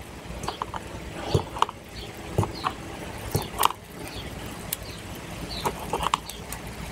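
Knife cutting a pickle into wedges over a plastic container lid: irregular light clicks and taps of the blade and plastic.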